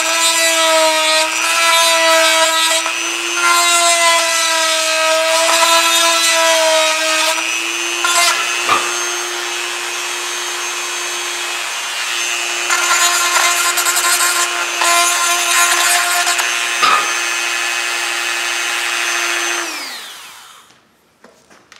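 Dremel rotary tool with a plastic cutting bit, running at a steady high speed and grinding out the end of a lock-on handlebar grip. It cuts in two long spells with a couple of short knocks between them, then is switched off near the end and its pitch falls as it winds down.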